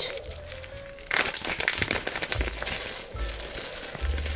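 Spice packet crinkling and rustling as seasoning is shaken out over a dish of chopped chicken, starting about a second in.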